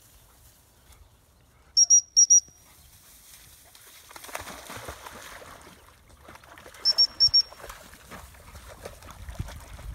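Dog training whistle blown in two sets of four short, sharp, high pips about five seconds apart, the repeated-pip recall signal used with retriever dogs. Between and after them comes the rustle and splash of a Labrador puppy pushing through grass and swimming through the shallow stream.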